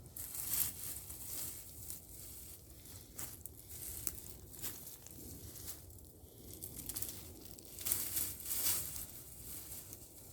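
Wood chips and soil crunching and rustling as they are dug through, irregular scrapes and rustles with louder bursts about half a second in and again around eight to nine seconds in.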